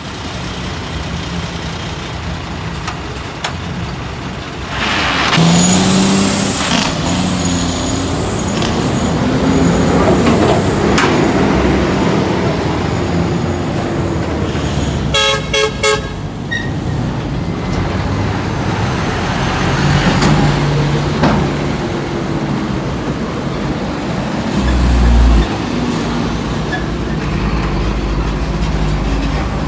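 Heavy diesel semi-truck engines running and pulling by, with a quick series of horn toots about halfway through and a surge of low engine rumble near the end.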